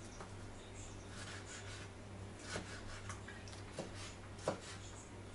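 Kitchen knife slicing tomatoes on a cutting board: quiet cutting with a few sharp taps of the blade against the board, the loudest about four and a half seconds in.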